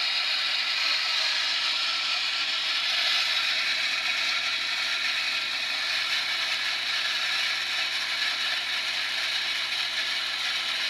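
Water spraying from a pipe: a steady hiss with a fine spattering texture.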